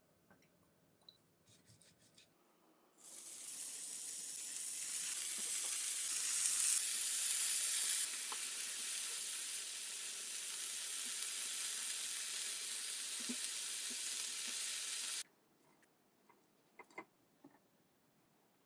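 Seafood skewers frying in oil in a hot grill pan: a steady sizzle that starts abruptly about three seconds in, is loudest just before the middle, and cuts off suddenly about three seconds before the end. A few faint clicks come before and after it.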